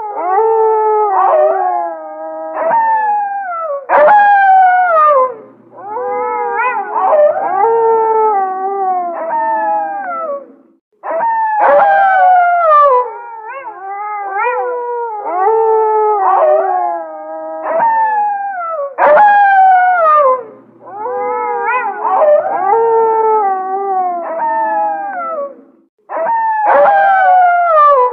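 Wolves howling in chorus: several long, sliding howls at different pitches overlap. The chorus cuts off sharply twice and starts again.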